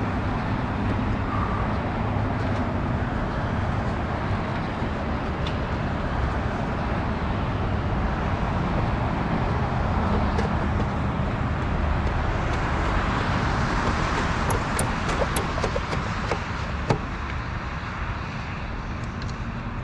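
Steady road-traffic rumble that swells a little midway. Light clicks and taps come about two-thirds of the way in, from plastic trim and nuts being fitted back onto the van's taillight housing.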